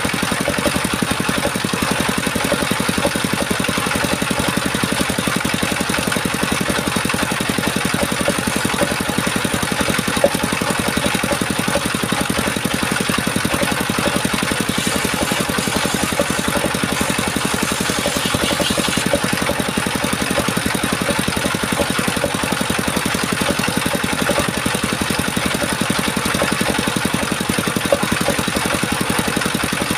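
Small engine running steadily at an even speed, with a fast, even pulse and no change in load.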